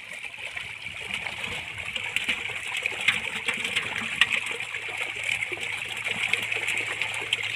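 Water splashing and sloshing from a seine net crowded with pangasius catfish. Many short, irregular splashes come from the fish thrashing at the surface and from hands working among them.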